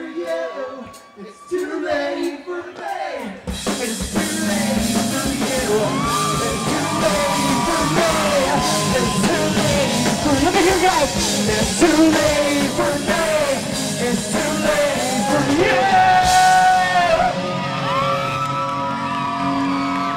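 Live rock band played through a PA, with a lead singer. The singer's voice is heard almost alone at first; about three and a half seconds in, the full band comes in with electric guitars and drum kit under the singing.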